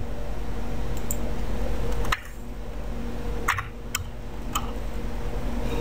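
Steady low electrical hum on the recording, which drops in level about two seconds in. Over it come a few sharp clicks from the computer keyboard and mouse in use, at about two, three and a half, four and four and a half seconds in.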